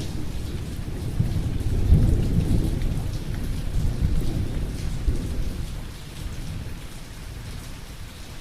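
Thunderstorm: a long, low rumble of thunder over steady rain. The rumble is loudest about two seconds in and dies away after about six seconds, leaving the rain.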